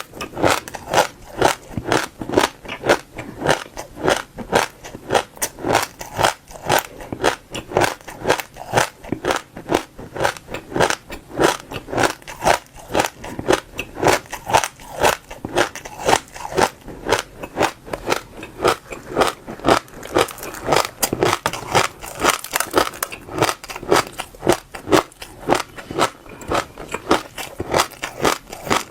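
Close-miked chewing of crunchy passion fruit seeds, a steady run of crisp crunches about two a second as the seeds are bitten and crushed between the teeth.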